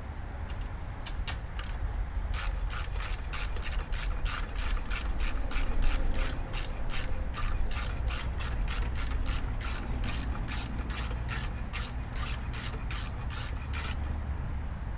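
Ratchet wrench clicking as it is worked back and forth, an even run of about three clicks a second that starts about two seconds in and stops near the end.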